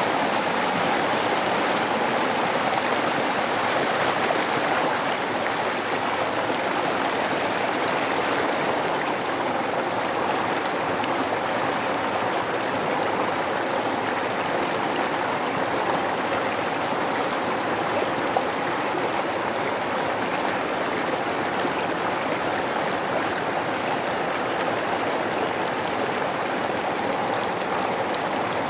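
River water rushing over rocks and rapids, a steady, even rush.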